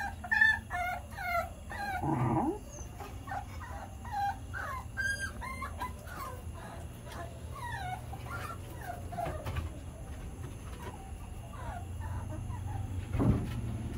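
Dogs whining: many short, high whimpers that rise and fall in pitch, coming thick and fast at first and thinning out later. A louder, lower call comes about two seconds in, and a sharp louder sound near the end.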